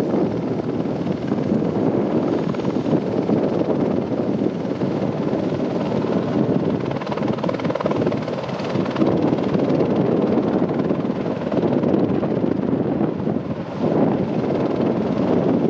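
AS350 Squirrel helicopter's rotor and turbine running steadily as it hovers with a telegraph pole slung on a long line, with a brief dip in level about 13 seconds in.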